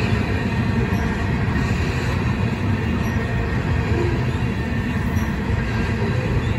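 Railroad tank cars of an ethanol freight train rolling past close by: a steady rumble of steel wheels on the rails.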